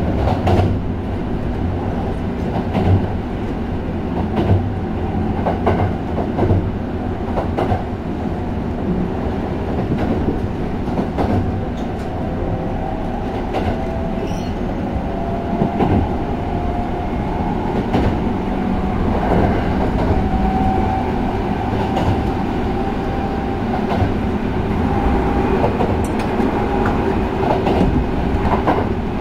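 Running sound of a Sanyo 5030-series electric train heard inside the car: a steady rumble of wheels on rail with knocks over the rail joints. Over it is the whine of its Fuji Electric IGBT-VVVF traction inverter and motors, which slowly rises in pitch through the middle.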